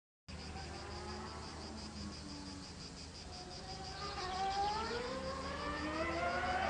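Distant V12 Formula One engine, a thin high-pitched buzz at first; from about four seconds in its pitch climbs steadily and it grows louder as the car accelerates.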